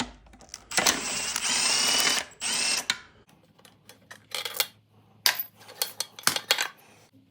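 Metal tool work on engine parts: a loud mechanical rasping for about a second and a half, a shorter burst of it, then a string of sharp clicks and knocks.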